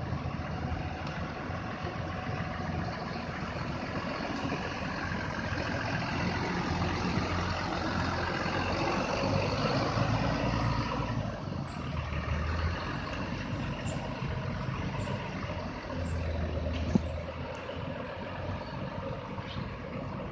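Bus engine running steadily, growing louder about halfway through and then easing off again, with one sharp click about three-quarters of the way in.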